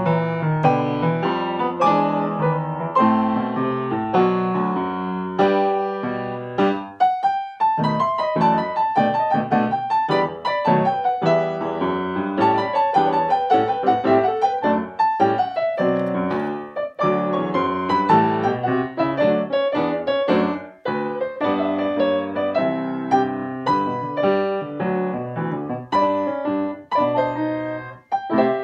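Acoustic grand piano played four hands as a duet, a continuous run of melody and chords with a brief pause about seven seconds in and another near the end.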